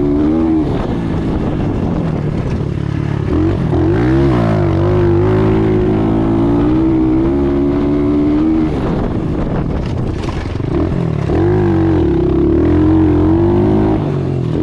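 Apollo Z20 pit bike's single-cylinder engine being ridden hard, its pitch rising and falling with the throttle. The revs drop off briefly four times, about a second in, near four seconds, near nine seconds and near eleven seconds, then climb again.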